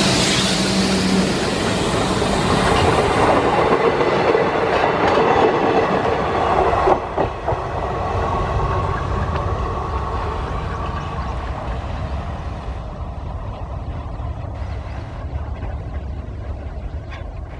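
WDM3A ALCO diesel locomotive and its two coaches passing close by, engine running loud and wheels clattering over the rail joints. A sharp knock comes about seven seconds in, after which the sound fades steadily as the train pulls away.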